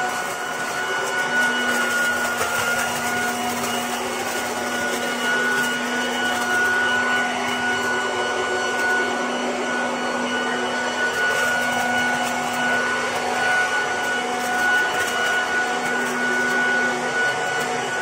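A Ryobi RY18BVXA-150 18-volt brushless cordless blower-vacuum is running in vacuum-and-shredding mode. Its fan gives a steady whine over rushing air, with scattered light ticks as dry leaves are sucked in and shredded into the bag.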